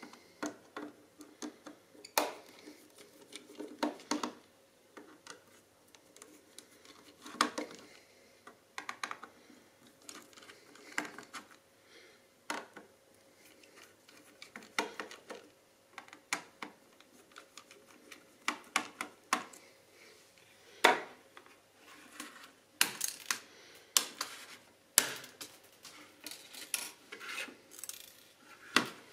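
Small metallic clicks and clinks of a precision screwdriver working the screws of a smartphone's internal frame, with the phone and its metal parts being handled on a hard table. The clicks come irregularly, with a denser run of sharp ones about three-quarters of the way through.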